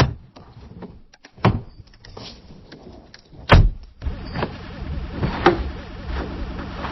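A window being shut and opened: a few knocks, then a heavy thump about three and a half seconds in. From about four seconds in comes a steady mechanical running noise with a faint regular wobble.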